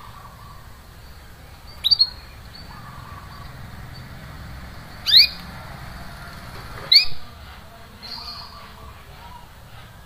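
Canary giving short, sharp rising 'cuit' call notes: a quick double chirp about two seconds in, then single chirps about five and seven seconds in, with faint softer notes between.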